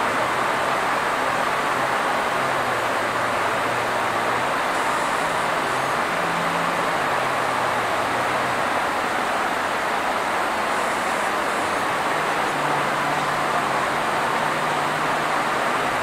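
Steady rushing background noise with a faint wavering low hum underneath.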